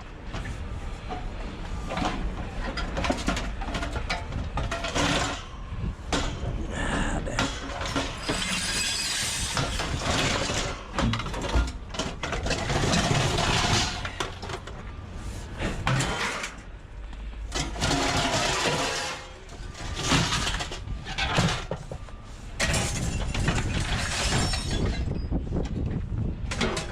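Scrap metal clattering and crashing again and again as pieces are pulled out and thrown down.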